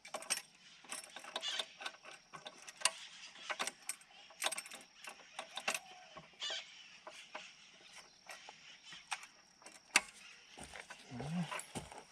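Irregular metallic clicks and clinks of hand tools and bolts being handled during work on a mini excavator, with one loud sharp knock about ten seconds in.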